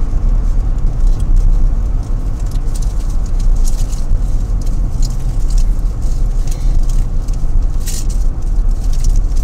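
Car cabin noise while driving: a steady low rumble of tyres on the road and the engine, with scattered light clicks and rattles.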